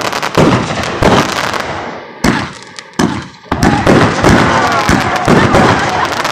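Aerial fireworks firing shot after shot, with sharp bangs from launches and bursts in quick succession and a lull of about a second partway through.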